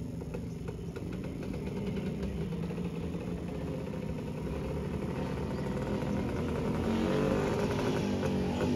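Two-stroke single-cylinder engine of a 1993 Rajdoot 175 motorcycle running as it is ridden up the road, growing steadily louder as it approaches, with the pitch shifting near the end as the throttle changes.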